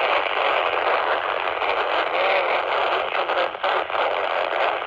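PNI Escort HP82 handheld CB radio's speaker hissing with FM receiver static while tuned to a weak, distant 27 MHz UK FM CB signal. The static drops out briefly a little past the middle.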